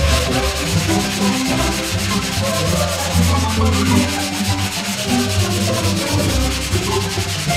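Hand block sanding of Bondo body filler on a car's rear quarter panel: a long sanding block with sandpaper rubbed back and forth in quick, continuous strokes, levelling the filler before 2K primer.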